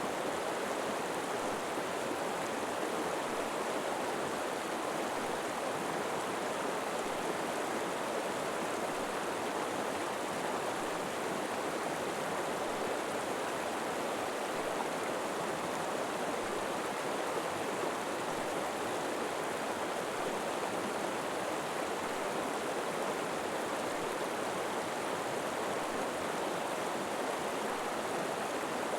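River water flowing and rushing steadily, an even unbroken wash of water noise.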